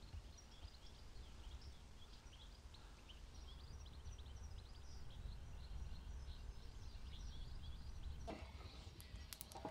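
Faint outdoor ambience: small birds chirping in short, repeated high calls over a low steady rumble, with a few sharp clicks near the end.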